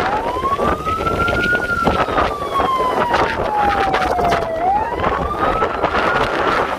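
A siren wailing, its pitch rising quickly and then sliding slowly down, twice, over a steady rush of storm wind.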